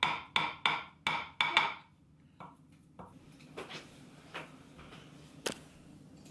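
Wooden spoon tapping against a glass baking dish of oat-cake mixture, about three quick ringing taps a second, stopping about two seconds in; a few faint knocks follow.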